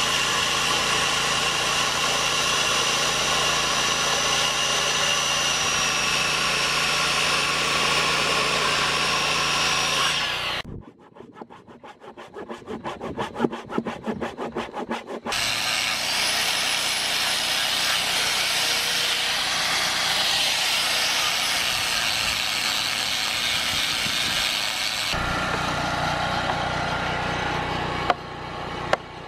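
Circular saw cutting deep into an 8x8 rough-cut timber, a loud steady run with a high whine that stops after about ten seconds. Then quick back-and-forth handsaw strokes for about four seconds, cutting through the uncut centre. A power tool then runs again for about ten seconds, followed by a few clicks near the end.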